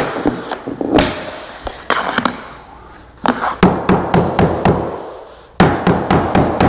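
Hammer tapping a vinyl floor plank down to seat its locking joint where a high spot was felt: a few single knocks, then runs of quick taps at about four or five a second.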